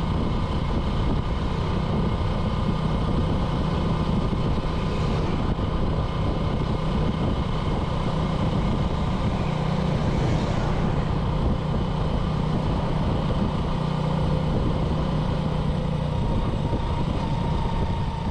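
Small motorbike's engine running steadily, an even hum with no revving up or down.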